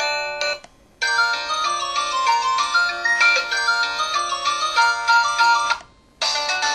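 LG-SD860 mobile phone's built-in ringtone melodies, played one after another. One tune cuts off about half a second in, a new melody of several notes at once plays for about five seconds and stops, and another starts near the end.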